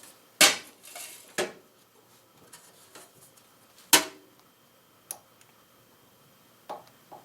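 A handful of sharp metallic clinks and knocks, hand tools and metal parts handled while the battery is fastened down; the loudest comes about half a second in, another about four seconds in, with quieter taps between.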